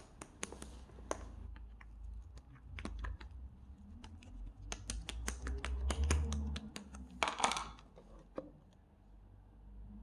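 Irregular light clicks and taps, with a short rustle about seven seconds in and a low rumble underneath.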